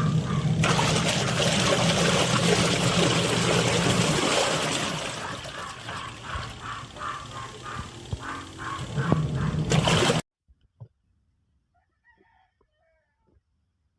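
Top-loading washing machine agitating a tub of water and suds after its gear case pulley was replaced: churning water over a low motor hum, with a quick regular pulsing. It stops abruptly about ten seconds in.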